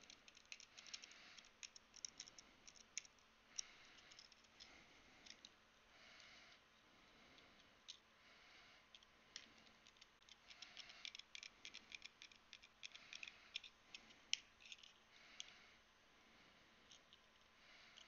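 Faint clicks and scrapes of a small screwdriver working screws into a small keyboard case, with a scattered run of tiny ticks in two busy spells and one sharper click a little after the middle.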